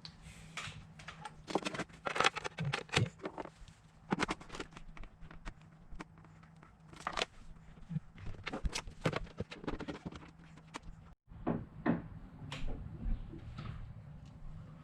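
Scattered clicks and knocks of plastic aquarium parts being handled while fitting a power filter, over a low steady hum.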